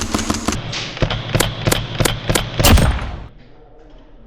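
Airsoft rifle firing a quick string of about five sharp shots, the last the loudest. They follow a fast, even rattle of fire that stops about half a second in.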